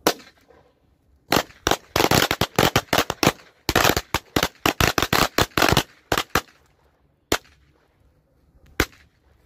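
A bundle of Korsar firecrackers going off. One bang comes first, then a rapid string of bangs lasts about five seconds with a brief gap in the middle, and two last single bangs come near the end.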